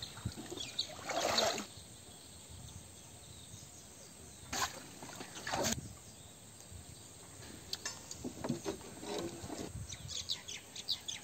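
A few short splashes of pond water, about a second, four and a half and five and a half seconds in, with small birds chirping near the end.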